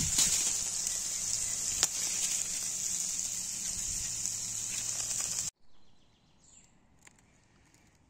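Steady high-pitched chirring of cicadas, with a faint low hum and a few light clicks. It cuts off abruptly about five and a half seconds in, leaving only a faint background.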